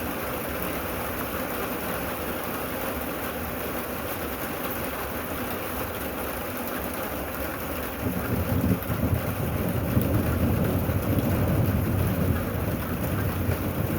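Steady rain falling. About halfway through, a low rumble comes in and stays to the end.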